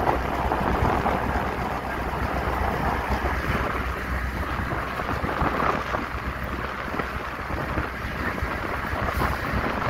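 Wind buffeting the microphone over the steady low rumble of a moving EMD GL18B diesel locomotive, heard from aboard on its side walkway.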